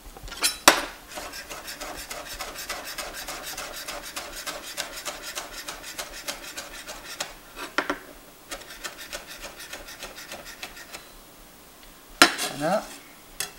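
Chef's knife rapidly chopping basil leaves on a cutting board: a fast run of short strokes, several a second, broken by brief pauses, with one sharp knock about a second in.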